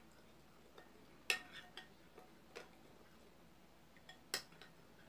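A spoon clicking against the side of a container while stirring a runny gelatin-and-salt slime mixture: a few sharp, separate clicks, the loudest about a second in and another near the end.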